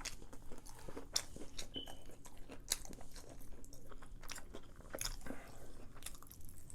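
A person chewing a bite of crispy fried chicken tender close to the microphone: irregular crunches of the breading mixed with wet mouth clicks.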